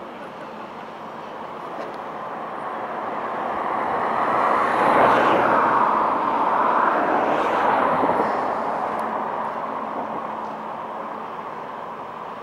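A vehicle passing close by. Its noise builds over a few seconds, peaks near the middle and fades away again.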